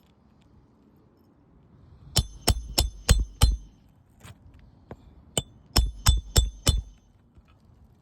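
Hammer driving roofing nails through a roof snake under a shingle tab: two runs of sharp metallic blows, five quick strikes about two seconds in and about five more near the end.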